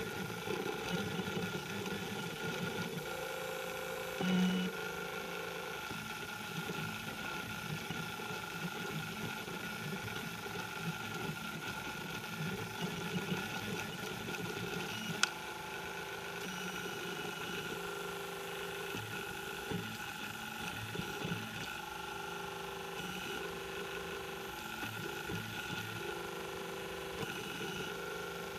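M3D Micro 3D printer printing: its stepper motors hum and whine in short stretches of shifting pitch as the print head moves, over a steady high tone. A louder brief hum comes about four seconds in, and a single sharp click about fifteen seconds in.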